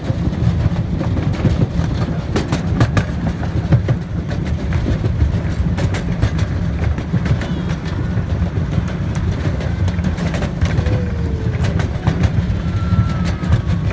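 Miniature park train rolling along its track, heard from a passenger car: a steady low rumble with irregular clicks of the wheels over the rail joints.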